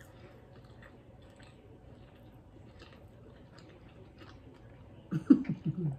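Two people chewing soft burgers, with faint wet mouth clicks and smacks. Near the end there is a short closed-mouth hum, the loudest sound here.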